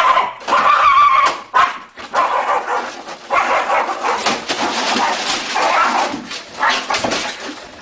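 Loud animal calls, short pitched cries repeating one after another with brief gaps.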